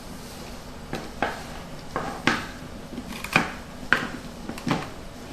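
Small hard clicks and taps, about eight of them at irregular intervals, from the chrome metal back cover and plastic front half of an iPod Classic 5th generation being handled and separated once its clips are released.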